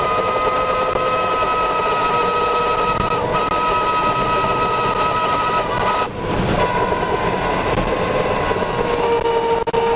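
EF4 tornado winds and debris blasting the armoured Tornado Intercept Vehicle: a loud, steady roar with several high whistling tones held over it, and a brief dip about six seconds in.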